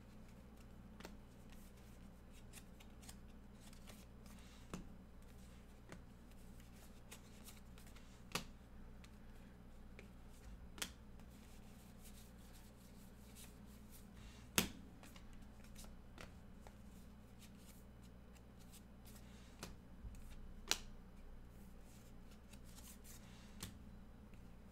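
A stack of 2024 Bowman baseball cards being flipped through by hand, card after card, making a faint sliding and flicking of card stock. A few sharper clicks of card edges stand out, the loudest about halfway through.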